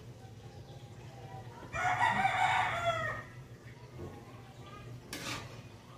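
A rooster crowing once, about a second long, its call dropping in pitch at the end, over a steady low hum. A brief clatter comes near the end.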